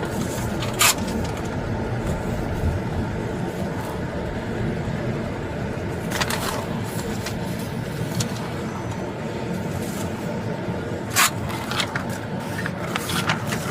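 Steady road and engine noise of a car driving, heard from inside the cabin, with a few short sharp clicks or knocks: one about a second in, one around the middle and one near the end.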